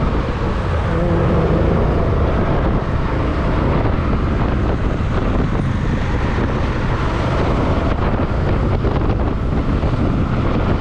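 Steady wind rushing over the microphone with a BMW motorcycle's engine running underneath, heard from the passenger seat while riding.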